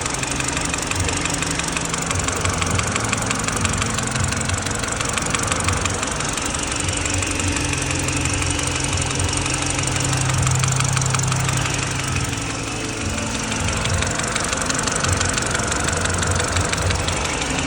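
BMW N46 inline-four petrol engine running with a fast, steady knocking clatter over the engine note; the knock is still there after the owner's attempted fix.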